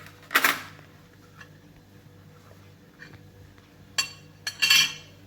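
Kitchenware being handled on a counter: a short clatter about half a second in, then a sharp knock and a quick cluster of clinks and knocks near the end.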